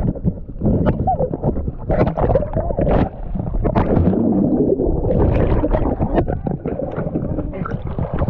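Muffled bubbling, gurgling and knocking of river water heard from a submerged action camera, with the high sounds dulled, as water churns around a capsized kayak.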